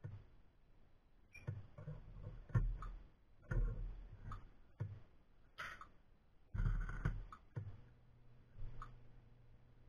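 Irregular metallic clicks, clinks and light knocks of steel tongs gripping and setting down brass cartridge cases at a salt-bath annealing pot.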